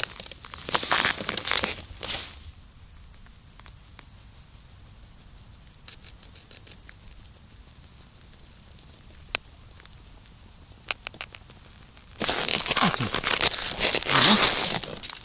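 Ice-fishing slush scoop scraping and scooping crushed ice out of a fishing hole for the first two seconds, a crunchy, crumpling noise. Then a quiet stretch with a few light clicks, and about three seconds before the end a loud stretch of dense rustling noise.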